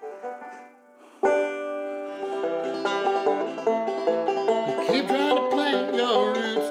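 Resonator banjo being picked in a fast run of bright plucked notes that starts suddenly about a second in. A man's singing voice joins over it near the end.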